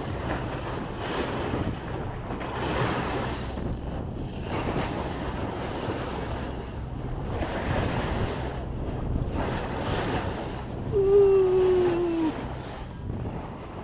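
A motor boat under way: a steady low engine hum under the rush and splash of water along the hull, swelling and ebbing every couple of seconds, with wind on the microphone. About eleven seconds in, a loud single tone glides down for about a second.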